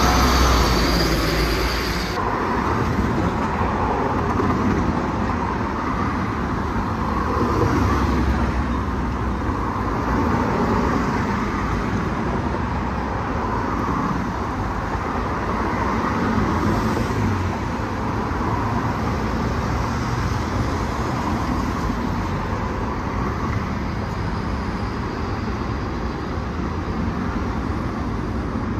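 A double-decker bus pulling away from the stop for the first two seconds, cutting off sharply. After that comes a steady din of road traffic, with cars passing on a busy road.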